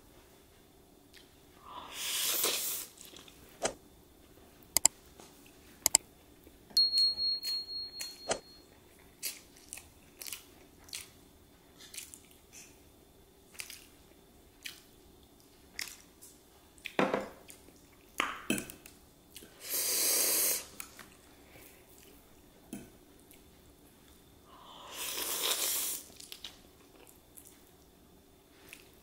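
Close-up eating sounds of chow mein noodles: a fork clicking and scraping on a plate many times, noodles slurped in three loud drawn-in swells, and chewing.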